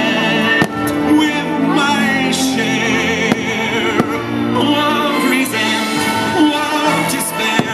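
Fireworks-show soundtrack music with a singer holding wavering notes over the accompaniment, with a few sharp firework bangs cutting through.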